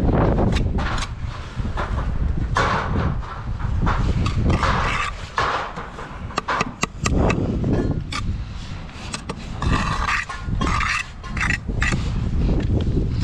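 Steel trowel scraping and tapping against bricks and wet mortar while bricks are laid into a soldier course, with frequent irregular sharp clicks and knocks. A steady low rumble runs underneath.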